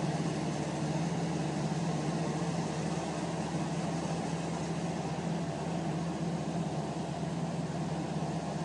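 Farm machinery engine running steadily during corn chopping, a constant low hum over even noise.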